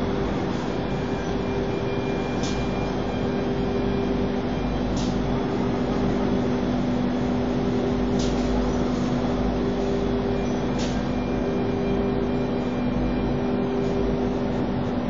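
ATC CNC router running, its spindle machining a sheet panel as the gantry travels, over the steady hum of the machine and its dust extraction. The hum holds two steady tones, and short hisses recur about every two to three seconds.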